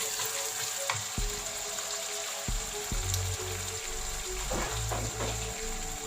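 Chilli paste sizzling in hot oil in a cooking pot, a steady hiss. Soft background music with low held notes comes in about halfway through.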